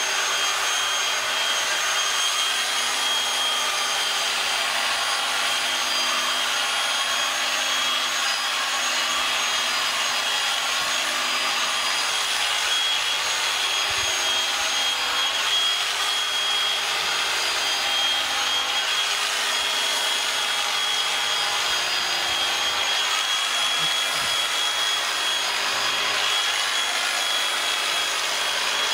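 Electric sheep-shearing clippers running steadily with a high whine as they cut through the fleece. The cutters are dulled from running into a metal ear tag and are bogging down.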